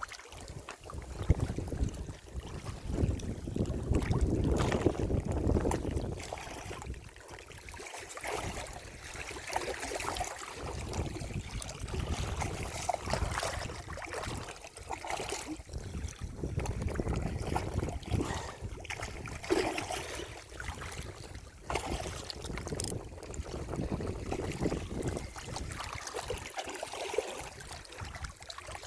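Wind buffeting the microphone in uneven gusts, with water lapping and trickling beneath it and a few light knocks.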